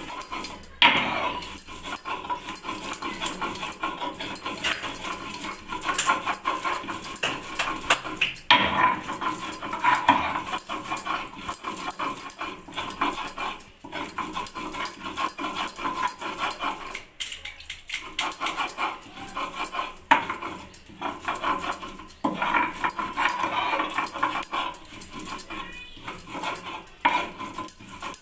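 A stone grinder (sil-batta) at work: the hand stone is scraped back and forth over the stone slab in a continuous rough scraping, broken by a few short pauses.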